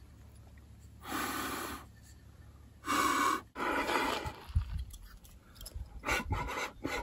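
Harmonica played in a few short, breathy chords, each under a second long, with a run of quicker notes near the end. Low thumps of handling or wind on the microphone come in between.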